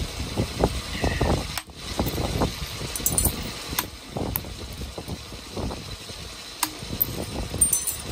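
Copper-tipped billet striking the edge of a stone preform held on a leather pad: an irregular series of knocks and sharp clicks as flakes are driven off, percussion flintknapping.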